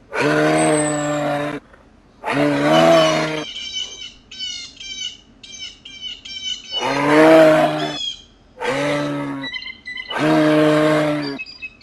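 Cow moose calling: five loud calls of about a second each, each holding a steady pitch, with small songbirds chirping in the gaps between them.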